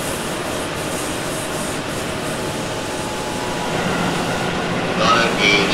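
Steady running noise inside a Tobu 8000-series resistance-control electric train under way, heard from motor car MoHa 8266: an even rumble and hiss of wheels on rail, with a low hum coming in about two-thirds of the way through. A voice starts just before the end.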